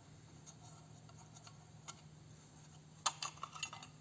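Light clicks and a short clatter of small hard parts being handled: a few scattered ticks, then a quick cluster of sharp clicks about three seconds in, over a faint steady hum.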